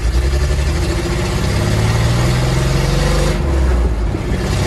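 Engine of a lifted 1955 Ford rat rod pickup accelerating on the road, heard from inside the cab. Its pitch climbs steadily, drops briefly a little over three seconds in, then climbs again.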